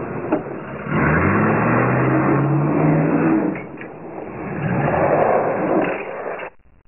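Car engine revving, its pitch climbing over a couple of seconds and rising and falling again later, under a loud rushing noise; it cuts off suddenly near the end.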